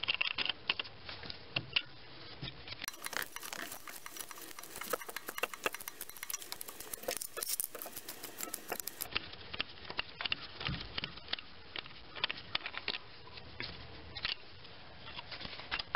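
Light, irregular clicking and scraping of small metal screws being turned out of the MAP sensor's bracket, with a work glove rubbing against the engine parts.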